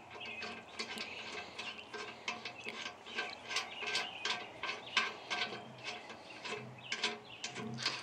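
Light, irregular metallic clicking and scraping, two or three small ticks a second, as a bolt and washer are turned by hand into the threaded cast-aluminum lid of a Maytag wringer washer.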